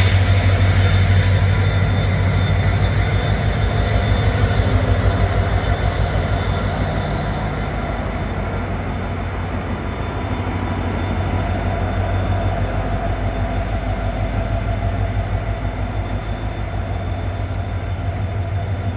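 WDG4 diesel-electric locomotive's engine running with a deep, steady hum and a fast pulsing throb. A faint high hiss dies away after about six seconds.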